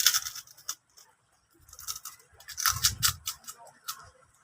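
Crackles and clicks from food being grabbed and eaten at the table, in two bursts, with a soft low thump about three seconds in.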